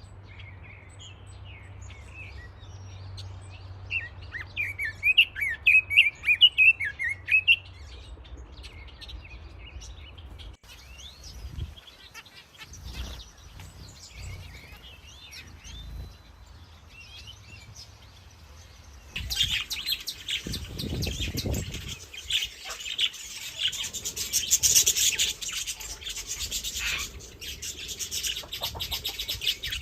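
Small songbirds chirping: a run of loud, quick chirps about four to seven seconds in, then quieter calls. From about nineteen seconds a dense, rapid, high-pitched chatter sets in.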